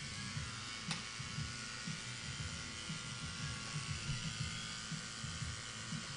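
Corded electric hair clipper running steadily as it shears short hair close to a woman's scalp, with one light click about a second in.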